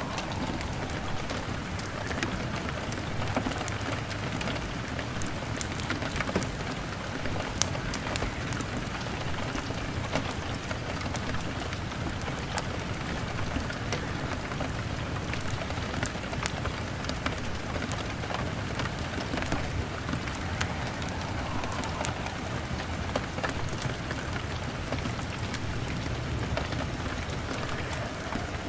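Steady rain on a window pane mixed with a crackling log fire: a constant hiss with frequent sharp crackles and ticks and a low rumble underneath.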